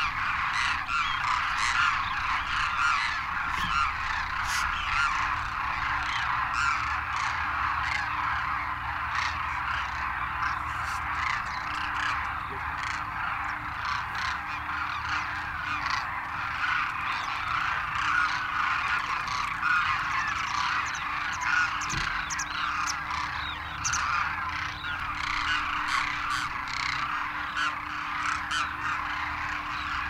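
A large flock of demoiselle cranes calling as they take off and fly: a dense, unbroken chorus of many overlapping calls.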